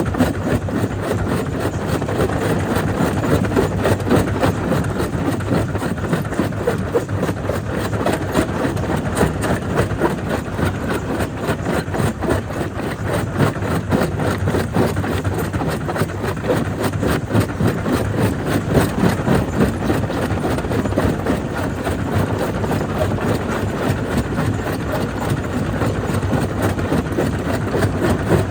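Jaw crusher running and breaking stone: a steady machine hum under a dense, continuous clatter of rock.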